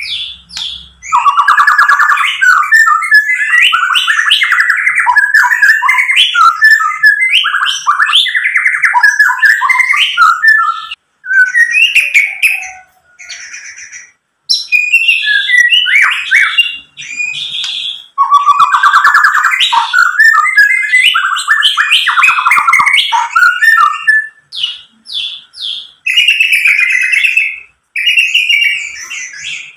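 Male white-rumped shama singing: long bouts of fast, varied whistled phrases, broken by a few short pauses.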